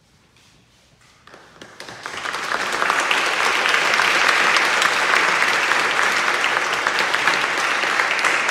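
Audience applause, rising from quiet a little over a second in to full strength by about three seconds, then holding steady.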